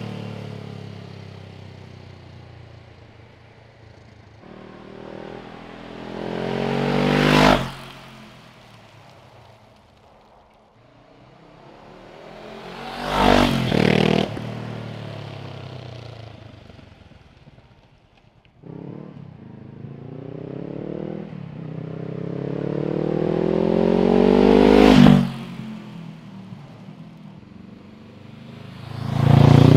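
2022 Honda CB500X's 471 cc parallel-twin engine in a series of flybys, about four passes: each time the engine note builds and rises as the bike accelerates toward the microphone, then drops in pitch and fades as it goes by. The passes compare the stock exhaust with a Fuel Exhausts aftermarket slip-on, first with its baffle in, then with the baffle out.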